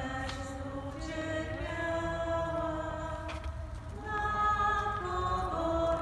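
A group of voices singing a slow hymn in unison, each note held for about a second before stepping to the next.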